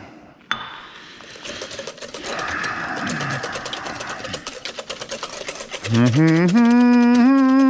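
Wire whisk beating fast against a mixing bowl, a rapid, even clicking, as oil and vinegar are hand-whisked into an egg-yolk emulsion for mayonnaise. There is one knock about half a second in. About six seconds in, a man's long held vocal note rises over the whisking.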